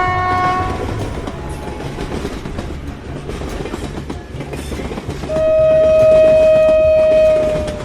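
Train horn blast ending about a second in, then a train rolling with a rhythmic clickety-clack rumble, and a second, louder long horn blast from about five seconds in that holds one steady note for over two seconds before dropping slightly in pitch and stopping.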